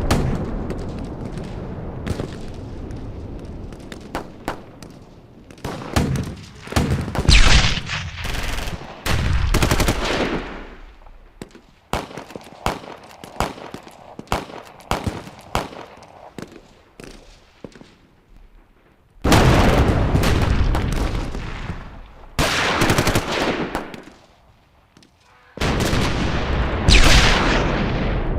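Battle sound effect: scattered rifle shots and bursts of machine-gun fire, broken by several heavy explosions, one cutting in suddenly about two-thirds of the way through.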